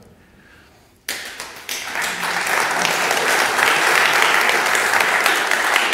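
Audience applauding: clapping starts suddenly about a second in, builds over the next two seconds and carries on steadily.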